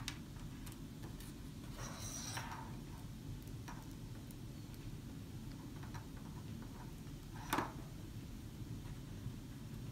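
Faint clicks and rubbing as a plastic catheter and thin wire are handled on a wooden tabletop, over a steady low room hum. There is a scraping rub about two seconds in and a sharper click about seven and a half seconds in.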